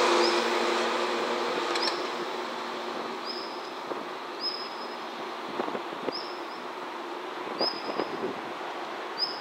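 Six-car JNR 115 series electric train moving away, its rumble and steady hum fading out over the first three seconds. Then a short high chirp repeats about seven times, roughly every second and a half, over a quiet background with a few faint clicks.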